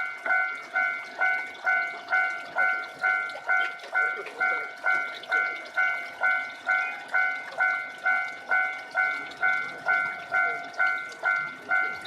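Japanese railway level-crossing warning bell ringing at an even pace of about two strikes a second, each ring fading quickly before the next.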